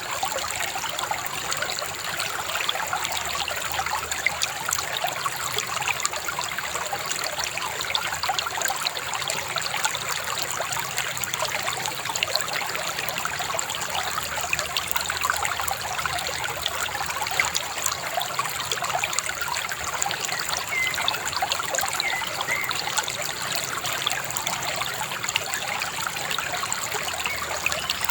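A shallow river babbling and trickling over stones, a steady, even rush of water.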